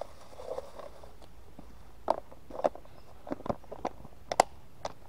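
Plastic clip-lock food container being closed by hand: a short rustle, then the lid pressed on and its clips snapped shut, about eight short plastic clicks and taps in the second half.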